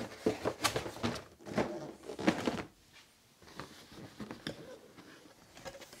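Toy packaging being handled: a quick run of short cardboard and plastic rustles and knocks, then fainter scattered clicks after a brief pause.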